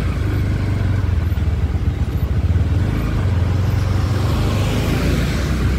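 Motorcycle engine running steadily at road speed, a constant low rumble, heard from the rider's own bike.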